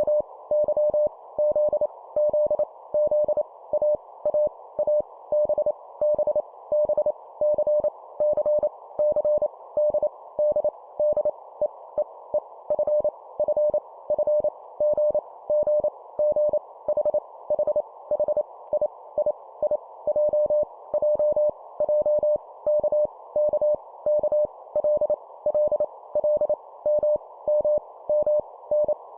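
Morse code (CW) tone keyed at 25 words per minute: a single mid-pitched beep switched on and off in quick dots and dashes, each letter sent three times, over a steady hiss.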